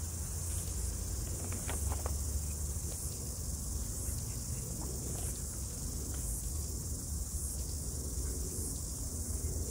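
A steady, high-pitched chorus of insects shrilling, swelling slightly about once a second, over a low rumble.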